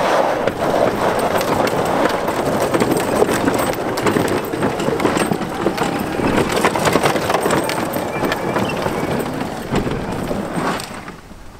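Tyres of an electric E-Z-GO golf cart crunching and scrabbling over loose dirt and gravel as it drives and turns hard, a dense crackle of small stones that fades near the end.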